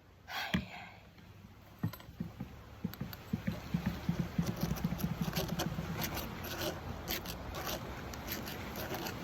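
Rapid, repeated scraping strokes that start about two seconds in and keep going at a steady pace, with a few isolated ticks just before them.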